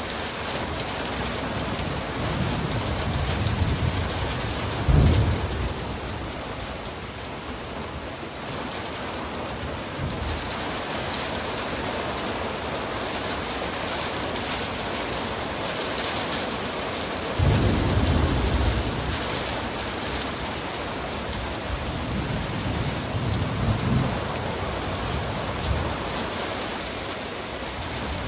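Steady rain falling through a thunderstorm, with rolls of thunder. A rumble builds to a sharp crack about five seconds in. A second rumble starts suddenly just past halfway, and a third follows a few seconds later.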